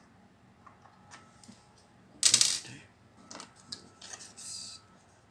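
Small clicks and taps of hand tools and parts during iMac disassembly, with one louder clatter about two seconds in.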